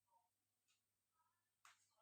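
Near silence: room tone, with a couple of faint short clicks, the clearest near the end.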